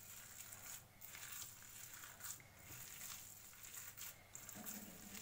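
Faint squishing of a hand kneading raw minced-meat kabab mixture, bound with egg and soaked bread, in a steel bowl.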